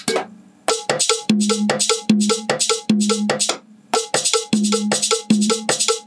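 A percussion loop triggered from a Roland SPD-SX sampling pad, playing through the speakers. It is a steady, repeating pattern of pitched drum hits with a hissing shaker-like layer on top. It starts about a second in and cuts off near the end.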